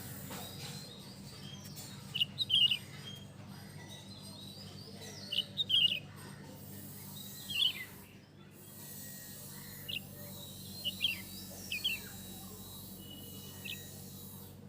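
Small birds chirping in short clusters of quick high notes, several times over, with a steady low hum underneath.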